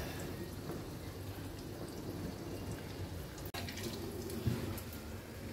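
Potato veg nuggets deep-frying in hot oil in a kadai: a steady sizzle and bubbling. It cuts out for an instant about three and a half seconds in.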